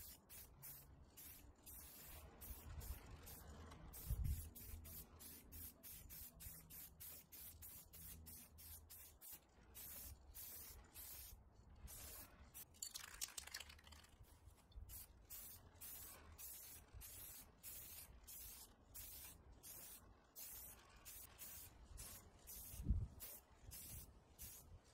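Faint on-and-off hiss of an aerosol can of White Knight Squirts primer being sprayed in passes over a painted panel, with one low thump near the end.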